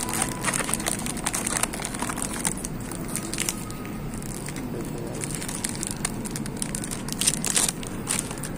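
Clear plastic wrapper crinkling and crackling as a wallet is handled and slid out of it. The crinkling is densest over the first few seconds, with a few more crackles about seven seconds in.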